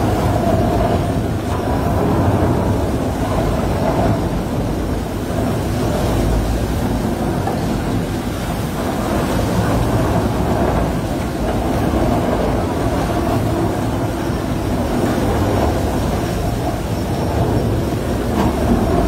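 Tunnel boring machine's cutterhead grinding through the rock face at breakthrough: a steady, loud, low mechanical noise.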